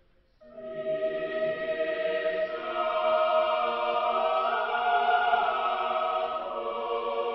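Background music: a choir singing a slow chant in long held notes, coming in about half a second in after a brief pause.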